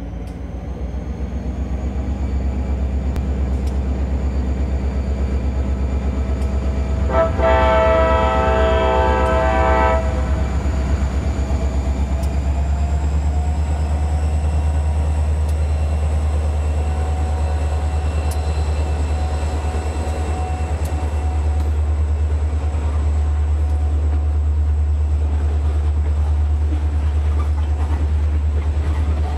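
Diesel freight locomotive sound for an N scale model train: a steady low engine rumble with a thin high whine above it. One horn blast of about three seconds starts about seven seconds in.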